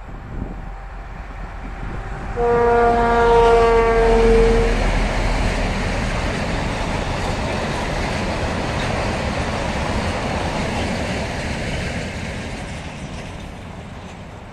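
ST44 (Soviet-built M62) diesel locomotive sounds its horn once for about two seconds as it passes, the note sagging slightly, then a train of loaded open freight wagons rolls by with steady wheel noise that fades away near the end.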